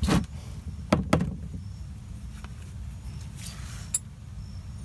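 Sharp knocks and clinks of metal parts being handled beneath a car: one right at the start, two more about a second in, and a small click about four seconds in, over a steady low rumble.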